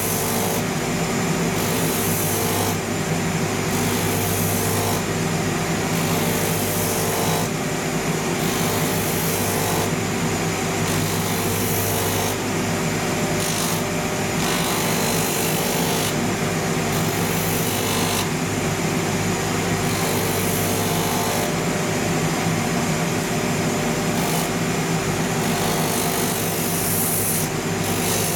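Rotary sanding disc on a shoe finishing machine running with a steady motor hum, while a leather outsole is pressed to it again and again, giving a rasping hiss that swells and drops every second or two as the grain surface of the sole is sanded off.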